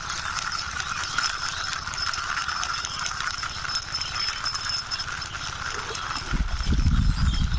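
A plastic toy being pushed along by hand, with a rolling, clattering rumble that grows loudest near the end, over a steady high hiss.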